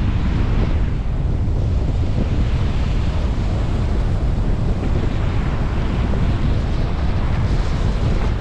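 Wind buffeting the microphone with a steady rumble, over surf washing on a beach that swells and falls in slow waves.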